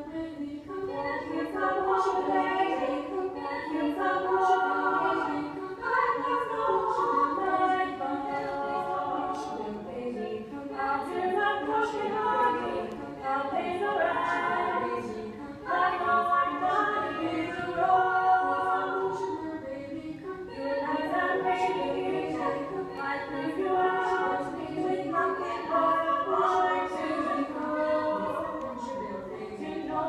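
Five-voice female a cappella group singing together without instruments.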